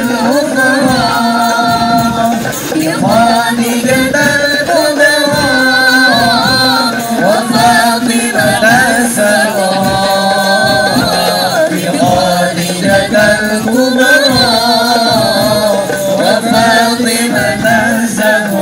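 Arabic sholawat sung by voices to a hadrah accompaniment of rebana frame drums, with a melody that rises and falls in long phrases.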